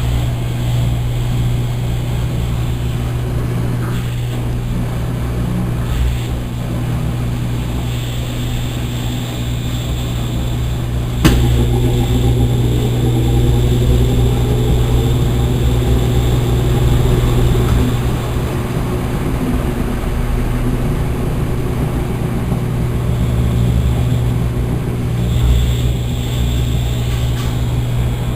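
Consul Maré Super 10 kg top-loading washing machine running through its wash cycle: a steady motor hum, with one sharp click about eleven seconds in.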